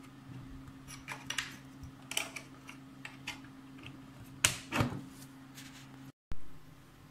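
Small plastic clicks and scrapes as a SIM card is pushed into a Huawei 4G router's slot, over a low steady hum. There are two sharper snaps about four and a half seconds in as the slot's plastic cover is pressed shut. The sound drops out briefly near the end, and a louder knock follows.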